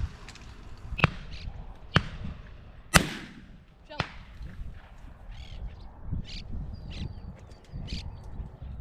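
Shotgun shots fired at doves: four reports about a second apart, the third the loudest and echoing, followed by a quieter stretch with small clicks.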